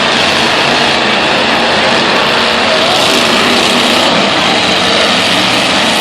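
Several demolition derby cars' engines running and revving together in a steady, loud racket.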